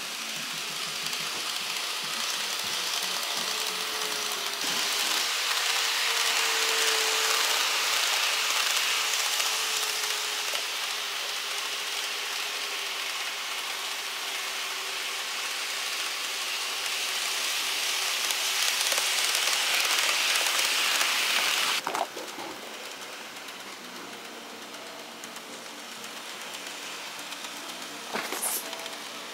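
N-scale model train of the Tokyo Metro 10000 series running on its track: a steady whirring motor and a rattle of wheels on the rails. It grows louder over several seconds, then drops off abruptly about 22 seconds in.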